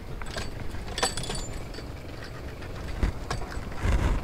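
Car engine running low and steady as the vehicle creeps along, with scattered clicks and knocks and two heavier thumps about three and four seconds in.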